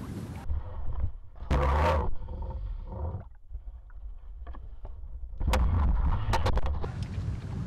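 Muffled water sloshing and splashing around a landing net at the surface as a fish is netted, with knocks and clicks from the net and its frame, heard through a camera mounted on the net. Low wind rumble on the microphone runs underneath.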